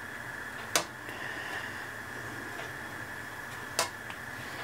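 Slotted metal spatula knocking twice against a wok while turning potatoes and onions, over a steady hiss of beer and water heating in the pan.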